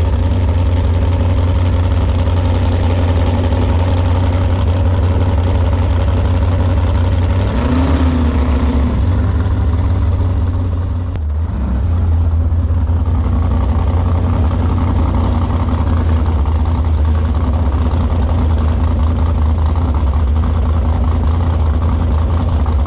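A Sanger V-drive hot boat's 468 cubic-inch big-block Chevy V8 running steadily under way. The engine note eases off briefly about halfway through, then picks up again.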